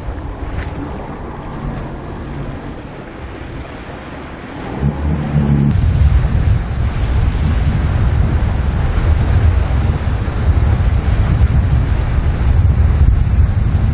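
Wind buffeting the microphone over a choppy sea, with water rushing and splashing alongside. The low buffeting gets much louder about five seconds in.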